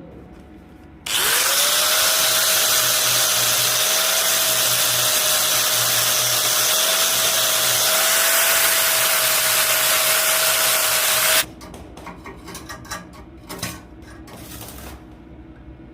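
An electric power tool starts about a second in, its motor whining up quickly to a steady pitch, and runs loudly with a strong hiss for about ten seconds before cutting off suddenly. A few light knocks and rattles follow.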